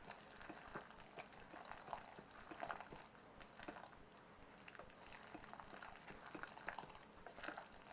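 Faint, soft wet squelching and small irregular clicks of a spoon stirring grated Parmesan into thick cooked orzo in a slow cooker pot.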